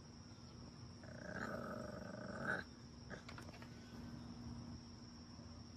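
English bulldog puppy giving one drawn-out, growl-like call about a second in. It lasts about a second and a half and cuts off abruptly at its loudest point.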